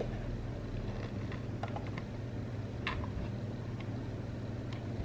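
A steady low hum, with a few faint light clicks as a USB cable plug is fitted against the plastic ports of a power bank.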